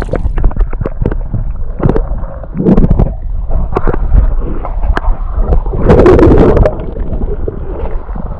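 Muffled gurgling and sloshing of lake water around a microphone held underwater, with irregular knocks and a heavier surge about six seconds in.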